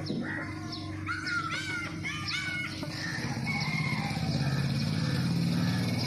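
A flock of house sparrows chirping, many short overlapping chirps, busiest in the first half. About halfway through a louder, lower, buzzy sound builds and runs on.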